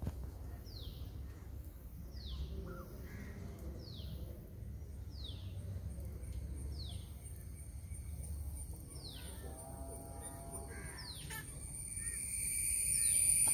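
A bird calling over and over, a short falling whistled note every second or so, over a low outdoor rumble. Near the end a steady high buzz comes up and grows louder.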